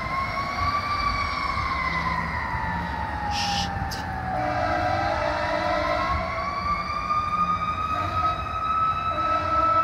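Fire engine's mechanical Federal Q siren winding slowly up and down: it rises, sinks to a low growl about four seconds in, then winds back up to a higher pitch near the end. A brief hiss is heard about three seconds in.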